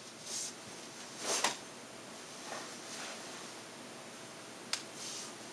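Cotton karate gi rustling and snapping with the moves of a kata: a couple of short swishes early, then one sharp snap near the end.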